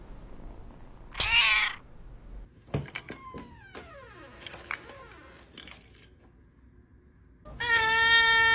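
A cat meows loudly once about a second in, followed by clicks and a few faint falling cries. Near the end a loud, perfectly steady held tone starts and continues.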